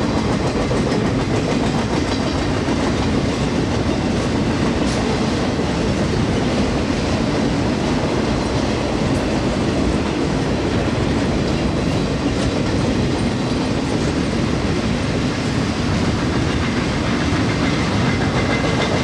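Circus train's flatcars, loaded with trailers and vehicles, rolling past on the rails with a steady rumble and the clickety-clack of wheels over rail joints.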